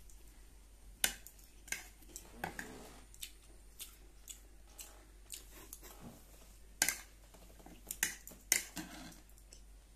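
Close-up eating sounds: chewing fried rice, with a metal spoon clicking and scraping on a ceramic plate. There is a string of short sharp clicks, the loudest about a second in and again around seven and eight and a half seconds in.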